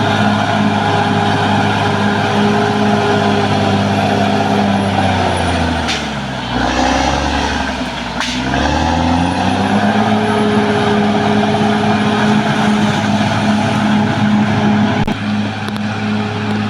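Caterpillar D6R XL bulldozer's diesel engine running steadily. About five seconds in, its pitch sags low, then it climbs back up to speed a few seconds later. A faint high whine rises and falls above the engine.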